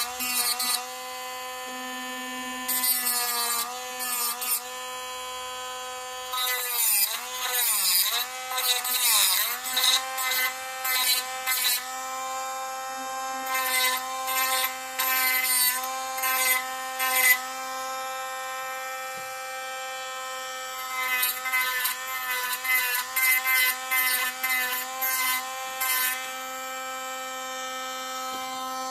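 Dremel rotary tool running at high speed with a steady whine, broken by repeated bursts of grinding as the bit is pressed to the cut surfaces to clean them up. Its pitch sags and wavers under load about eight seconds in.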